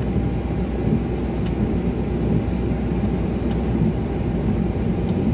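Steady low rumble inside a car's cabin, its engine idling while the car stands at a pedestrian crossing.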